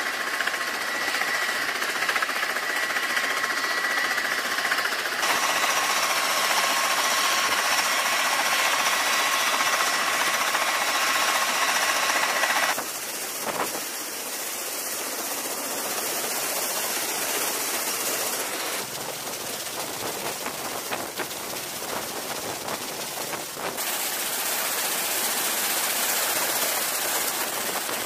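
CMV-22B Osprey's turboshaft engines and proprotors running, a steady rushing noise with a high turbine whine over the first part. The sound changes abruptly several times.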